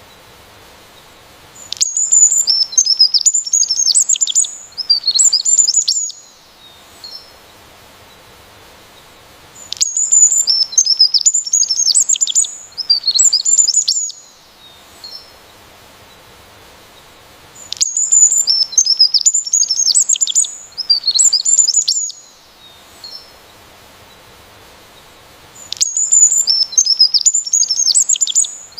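A songbird singing a rapid, high-pitched chirping phrase about four seconds long, repeated three times in the same form every eight seconds, with a faint steady hiss between phrases.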